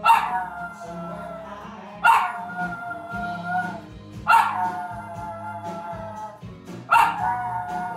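Boston terrier howling along to music: four long howls about two seconds apart, each starting sharply and then held, sinking slightly in pitch.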